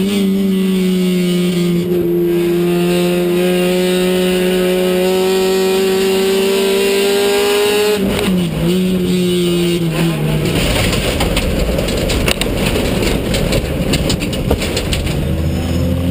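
Race car engine heard from inside the cockpit, held at steady high revs and climbing slowly. About eight seconds in its note dips and falls as the car spins out, and it drops away about two seconds later. A rough, crackling rattle follows, and a low engine note returns near the end.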